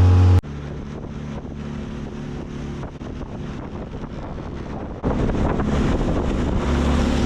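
A vehicle engine running while driving, with wind noise on the microphone. The sound changes abruptly about half a second in to a quieter, windier stretch, then jumps back up about five seconds in to a louder steady engine drone.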